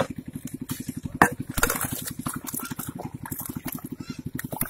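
A small engine putters with a fast, even beat, while a metal bowl knocks and scrapes against mud and fish in a hole. The loudest knock comes about a second in, followed by a wet scrape.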